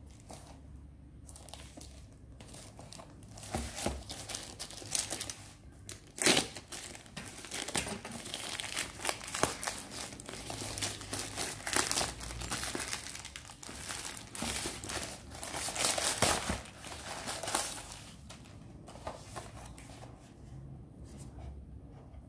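Plastic mailer bag crinkling and tearing as it is ripped open by hand, in a long run of rustles and rips, loudest about six seconds in. The crackling dies down to light handling near the end.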